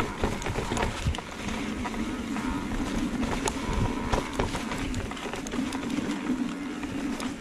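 Electric mountain bike ridden over a rocky, stony trail: frequent clicks and knocks of the tyres and frame over stones, with a steady hum underneath from the drive motor.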